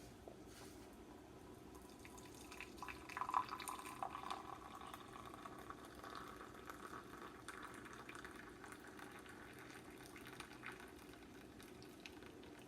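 Hot tea being poured into a cup, starting about two seconds in: a faint liquid pour that is strongest early on, then settles into a thinner steady stream.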